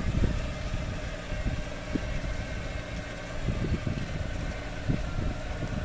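Cummins Onan diesel generator running steadily with an even engine hum, while gusts of wind rumble on the microphone.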